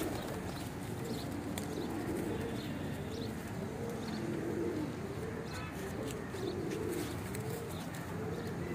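Domestic pigeons cooing, a string of low rolling coos following one another every second or two.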